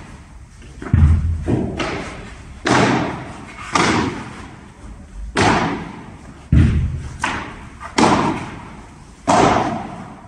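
Padel rally: the ball struck back and forth by padel rackets and bouncing off the court and its glass walls, a sharp impact about once a second, each echoing in a large hall. Two of the impacts, about a second in and again past the middle, are heavier and deeper thuds.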